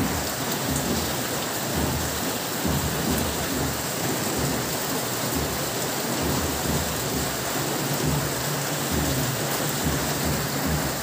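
Steady rain falling on garden plants and soil, an even hiss, with an uneven low rumble underneath.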